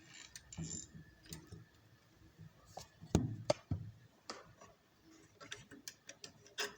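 Small clicks and taps of metal sewing-machine parts being handled as the bobbin case is taken out, with two louder knocks a little after three seconds in.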